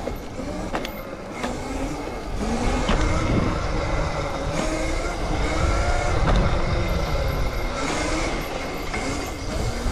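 Razor electric dirt bike being ridden, its motor and chain drive whining, the pitch rising and falling with speed over a heavy wind rumble on the microphone. There are a few sharp knocks in the first three seconds.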